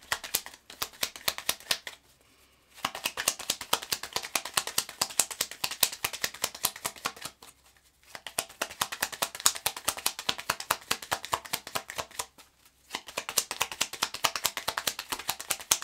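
A deck of Lenormand cards being shuffled by hand: quick runs of card flicks and rustles in four bouts, with short pauses about two, seven and a half and twelve and a half seconds in.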